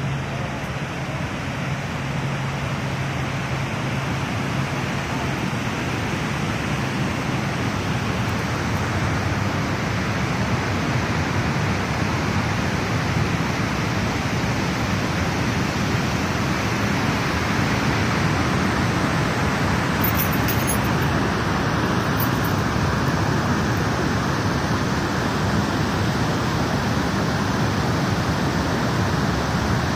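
Montmorency Falls' waterfall: a steady, even rush of falling water that grows gradually louder through the first half or more, then holds.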